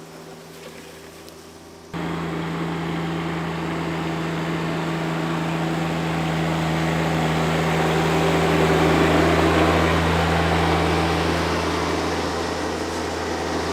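John Deere X748 garden tractor's three-cylinder diesel engine running at a steady speed. It steps up sharply in level about two seconds in, grows louder to a peak about halfway through, then eases off.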